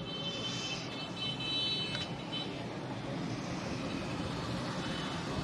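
Steady background rumble and hiss, with a high, steady multi-tone sound during the first two and a half seconds.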